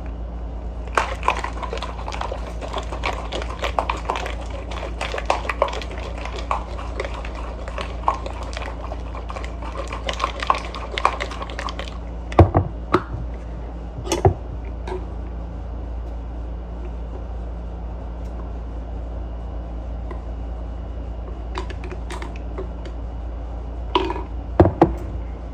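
Ice cubes rattling inside a lidded cup of lemonade as it is shaken hard for about ten seconds, then a few separate knocks and clinks against the container. A steady low hum runs underneath.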